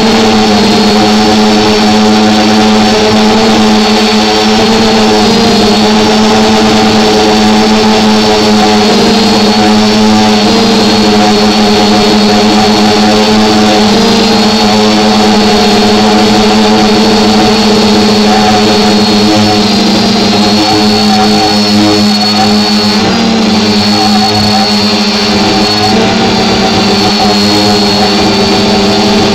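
Multirotor drone's motors and propellers running close to the on-board camera: a steady hum with a thin high whine above it, the pitch wavering slightly as the drone holds and adjusts its position.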